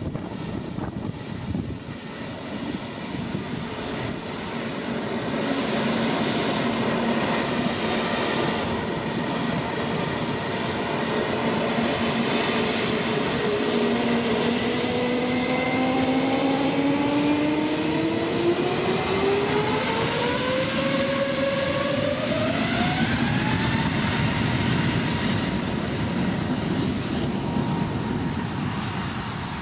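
Airbus A320neo's CFM LEAP-1A turbofan engines spooling up to take-off power. A steady engine whine climbs in pitch over about ten seconds and then holds high over loud jet noise.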